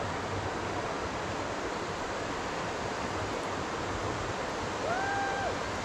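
Steady rush of whitewater from a river rapid.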